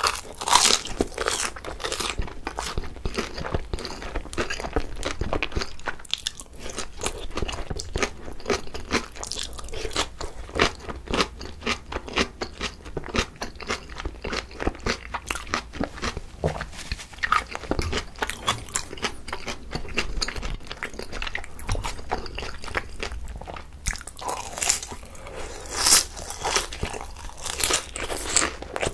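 Close-miked biting and chewing of pan-fried pollock-roe dumplings with a crisp, thin fried skin: a dense run of crunches, loudest at the first bite and again about 25 seconds in.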